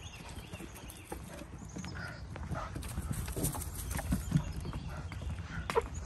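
Footsteps of a person and two dogs walking over dry leaf litter and onto a wooden boardwalk: irregular crunching and knocking steps, which grow louder about halfway through.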